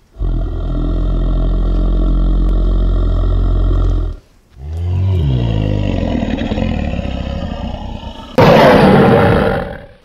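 Dinosaur roar sound effects: a long, deep growl, a brief break about four seconds in, then a second growl that ends in a sudden, very loud, harsh roar near the end.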